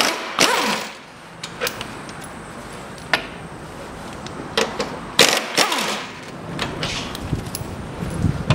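Air impact wrench running in two short bursts as it spins out engine-mount bolts, one near the start and one about five seconds in. Between them come scattered metallic clicks and clinks of bolts and tools.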